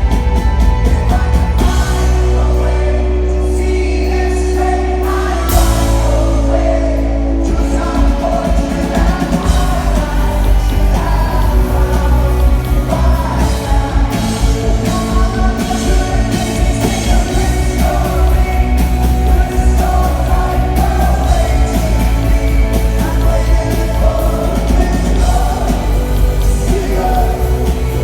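A rock band playing live, with vocals over guitars, bass and drums. The low end drops back for a few seconds, then the full band comes back in with a loud hit about five and a half seconds in.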